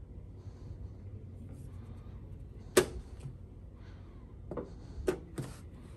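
Wooden chess pieces set down on a wooden board and a chess clock's buttons pressed during a fast game. One sharp knock about three seconds in, then a few lighter knocks and clicks near the end.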